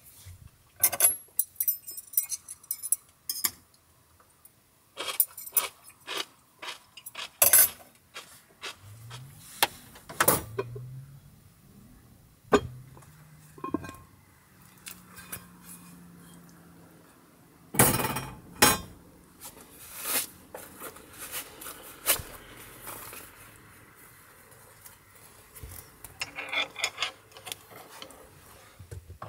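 Cast-iron pot and lid being handled: a string of metal clanks, clinks and knocks, with the loudest strikes about a second in, around seven seconds and around eighteen seconds, and some low scraping between them.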